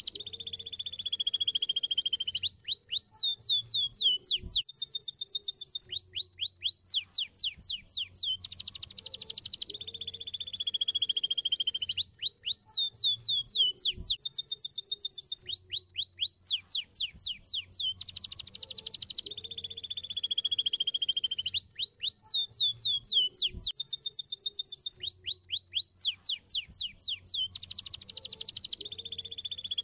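Domestic canary singing a long song of rolling trills, fast repeated notes and downward-sweeping whistles, the same sequence coming round about every nine and a half seconds, over a faint low hum. This is a canary lure (pancingan) song meant to set other canaries singing in answer.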